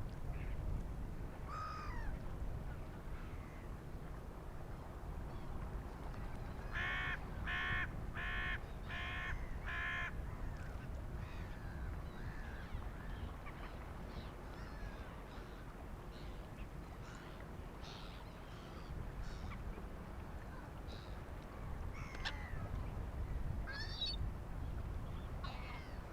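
A hooded crow cawing five times in quick succession, with scattered calls from black-headed gulls, over a low steady rumble.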